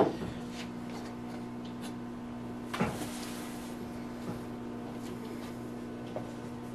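A squeegee stroke across a screen on a manual screen-printing press ends in a sharp clack. It is followed by a steady electrical hum of shop machinery and a single knock about three seconds in.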